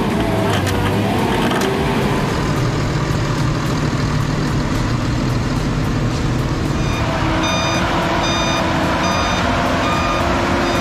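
A heavy vehicle's engine running steadily. About seven seconds in, its reversing alarm starts, a steady series of short high beeps.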